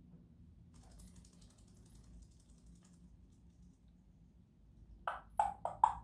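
African grey parrot making short clicking pops: four quick, loud ones in a row near the end, after faint scratchy ticking in the first half.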